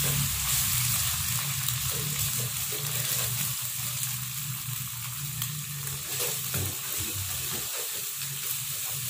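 Egg scrambling in hot oil in a nonstick wok: a steady sizzle with the scattered scrapes and taps of a plastic spatula stirring it.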